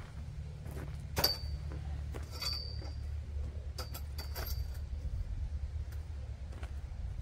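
Metal parts clinking against each other: four or five sharp clinks in the first five seconds, each with a brief high ring, over a steady low hum.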